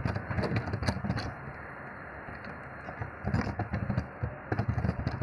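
Typing on a computer keyboard: quick runs of keystrokes, with a pause of about a second and a half in the middle.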